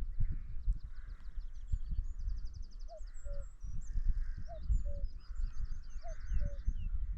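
Distant common cuckoo calling "cuck-oo" three times, a falling two-note call about every one and a half seconds. A small songbird twitters and trills high above it. Low rumbling thumps on the microphone are the loudest sound throughout.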